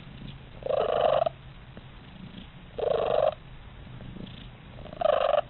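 Domestic cat purring steadily, with three short, loud calls about two seconds apart, each about half a second long.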